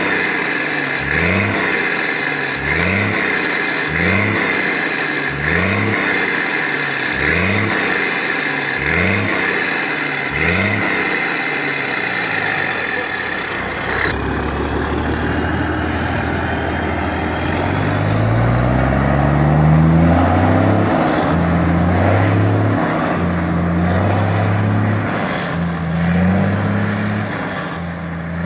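MAN TGA truck's diesel engine revved again and again through its loud 'sound pipe' exhaust with twin tips, in quick regular blips, each a short rise in pitch. About halfway through, the sound changes abruptly to the truck pulling away, its engine climbing in pitch as it accelerates and then steadying.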